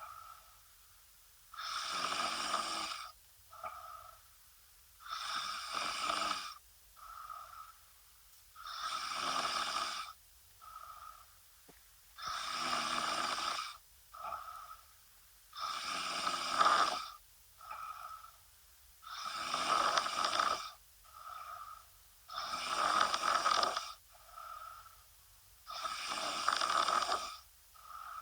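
A woman snoring in a steady rhythm: eight long snores, about one every three and a half seconds, each followed by a shorter, softer sound.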